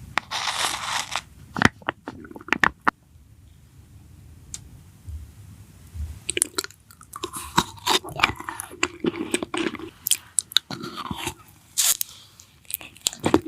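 A person biting and chewing food, with many sharp clicks through the chewing and a quieter pause of a few seconds before the chewing picks up again.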